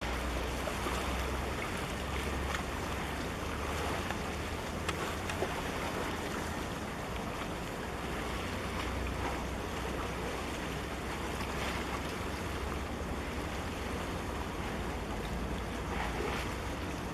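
Harbour ambience as a container ship passes close under way: a steady low rumble and water washing, with wind noise on the microphone.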